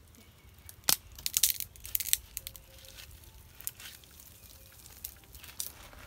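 Twigs snapping and leaves rustling as a boy climbs down a tree trunk. There is a sharp snap about a second in, then a quick cluster of crackles, with a few lighter ones later.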